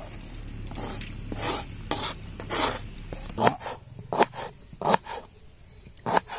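A kitchen knife scraping chopped green chillies across a plastic cutting board in several long strokes, then, about three seconds in, the knife slicing fresh ginger root on the board with short crisp chops, roughly two a second.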